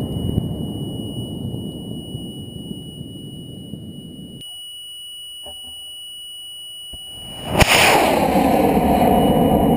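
High-power rocket motor igniting on the pad about three-quarters of the way in: a sudden loud blast, then a steady loud roar of thrust. Before it, an earlier rushing noise fades and cuts off to a low hiss, with a faint steady high whine throughout.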